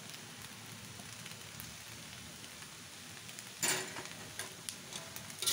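Fried noodles sizzling steadily in a hot wok, then a metal spatula clanks and scrapes against the wok about two-thirds of the way in as stirring starts, with a few more lighter clinks and a second clank near the end.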